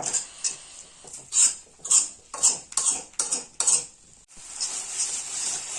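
A spoon stirring and scraping thick ginger paste around a kadhai as it cooks, in short strokes about two a second. After about four seconds the scraping gives way to a steady hiss.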